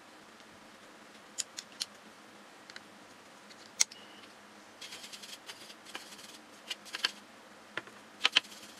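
Irregular sharp clicks and taps, some in quick succession, with a short run of rattling about five seconds in and the loudest pair of clicks near the end.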